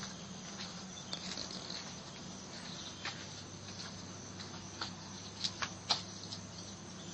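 Steady low hum under a faint hiss, with scattered faint clicks and taps and a short cluster of sharper ticks about five to six seconds in.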